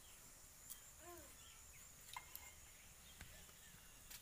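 Near silence: faint outdoor ambience with a steady high insect tone, a short animal call about a second in, and a few light clicks of a spoon against small plastic spice containers.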